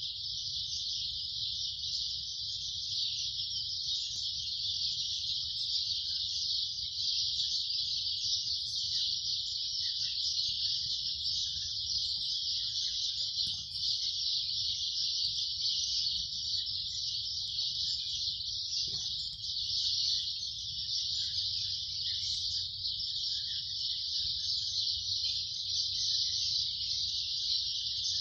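Insect chorus: a steady, unbroken high-pitched chirring, with a low rumble underneath.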